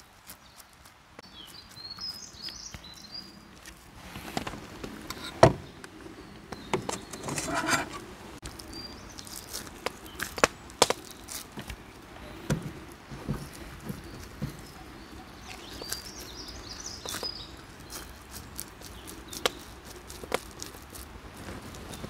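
Gloved hands squeezing and pressing hand-minced meat along a wide flat Adana kebab skewer: soft wet squelching with scattered taps and knocks, one sharper knock about five seconds in.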